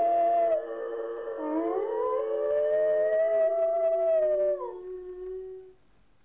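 Two dogs left home alone howling together in long, overlapping howls, one voice gliding up in pitch while the other holds. Near the end the howls drop in pitch and die away one after the other. The owner reads it as the dogs calling their absent pack home.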